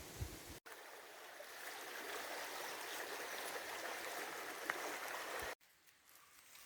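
Steady rush of flowing water, a mountain stream or waterfall, that starts abruptly about half a second in and cuts off abruptly near the end. Low thumps come just before it and a quieter stretch follows it.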